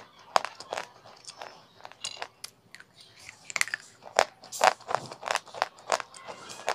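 Pieces of baked clay pot being bitten and chewed close to the microphone: a run of sharp, irregular crunches, louder and closer together in the second half.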